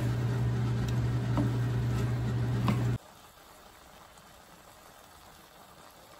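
Squid and vegetables sizzling as they are stir-fried in a pan, with a few scrapes and taps of the spatula, over a steady low hum. About three seconds in the sound drops away to a faint hiss.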